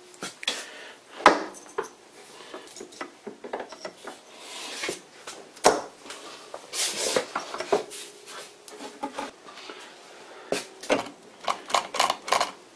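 A bungee cord being stretched around a lathe's electric motor and hooked on to pull the drive belt tight: irregular clicks and knocks of its hooks against the metal housing, with brief rubbing, and a quick run of clicks near the end as it is fastened.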